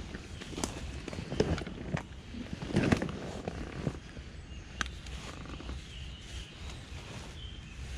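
Footsteps crunching and rustling through leaf litter on the forest floor, several uneven steps in the first half with the loudest about three seconds in, then only a few faint rustles and clicks over a low steady rumble.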